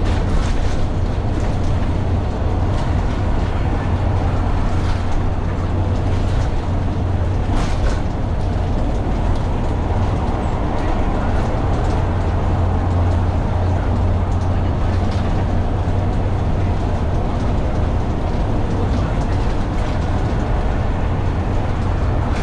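Dennis Dart single-deck bus on the move: a steady low engine drone with road noise, and a few brief rattles.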